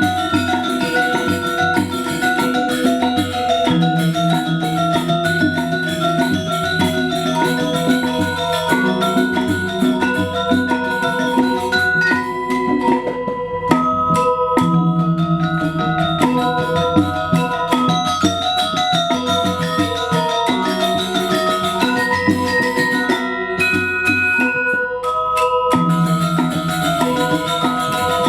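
Balinese gamelan music accompanying Legong dance: bronze metallophones ring in fast, interlocking repeated patterns over sustained lower tones. The high rattling layer thins out briefly about halfway through and again a few seconds later.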